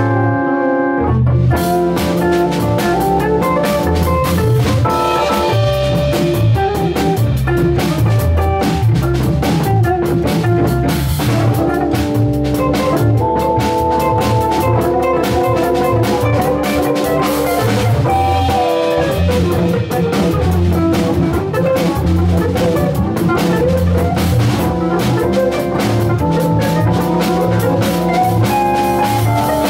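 Live jazz: an electric organ holding chords, a hollow-body electric guitar playing, and a drum kit keeping time on cymbals and drums. The cymbals drop out briefly right at the start, then come back in.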